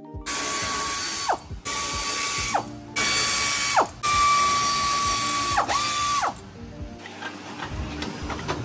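Pneumatic air ratchet run in four bursts on the exhaust fasteners under the car, each a hissing run with a steady whine that drops in pitch as the tool spins down on release; the last burst is the longest.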